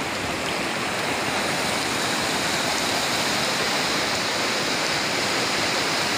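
Muddy floodwater rushing across a road, a steady rushing noise.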